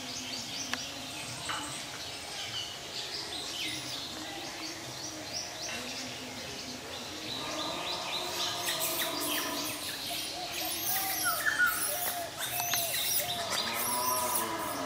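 Forest birds chirping, many short high calls overlapping in a busy chorus.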